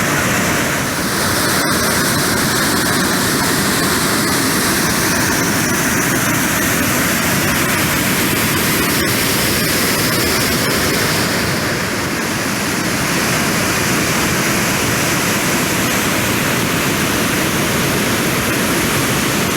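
Waterfall pouring: a loud, steady rush of falling water, with two brief dips in level.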